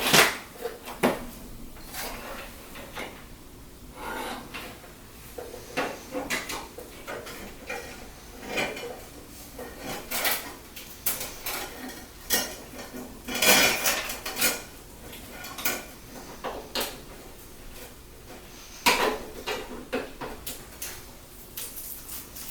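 Computer parts and cables being handled during a PC build: irregular clicks, knocks and clatter of hard plastic and metal, with a few louder clusters of knocks.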